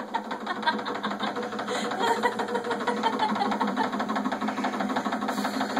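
Master Craft belt vibrator exercise machine running, its motor and shaking belt making a fast, steady rattle.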